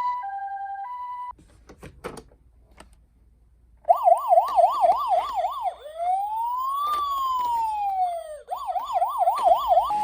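Japanese emergency-vehicle sirens. First an ambulance's two-note hi-lo siren ("pii-poo") alternates for about a second. After a short pause with a few faint clicks, a police siren starts: a fast warble for about two seconds, one slow wail that rises and falls, then the fast warble again.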